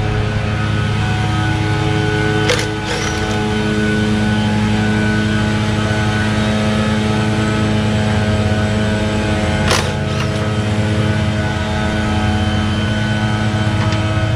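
A small engine running at a steady speed, with two sharp clicks about seven seconds apart.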